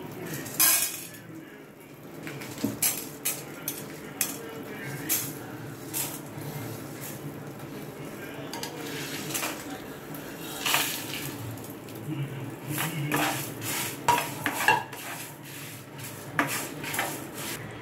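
Whole spices, lentils and dried red chillies being tipped into a nonstick pan and stirred with a wooden spatula as they dry-roast on low flame for sambar powder: an irregular clatter of clicks and scrapes.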